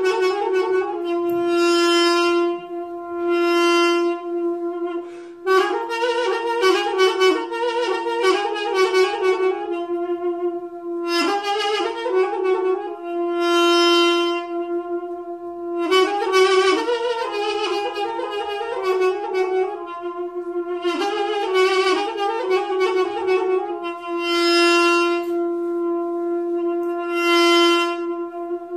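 Instrumental folk music: a reedy wind instrument plays a slow, ornamented melody in phrases over one steady drone note, with long held notes between the phrases.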